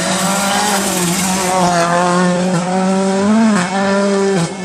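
Rally car engine accelerating hard toward and through a bend, its pitch climbing steadily. About three and a half seconds in it briefly rises further and then drops, like a gear change. The sound cuts off suddenly near the end.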